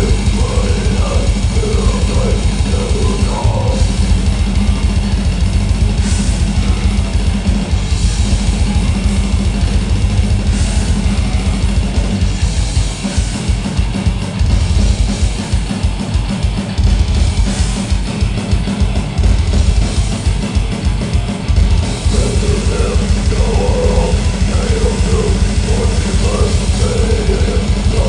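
A grindcore band playing at full volume: heavy distorted guitar riffing over fast drumming and cymbals. About halfway through, the riff drops back under a run of rapid, evenly spaced bass-drum strokes, and the riff comes back near the end.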